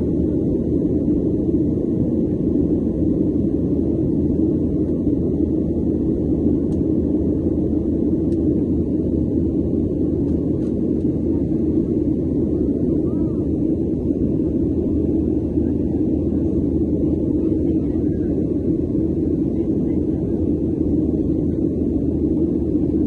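Steady deep rumble of a jet airliner heard from inside the passenger cabin: engine and airflow noise, even and unbroken.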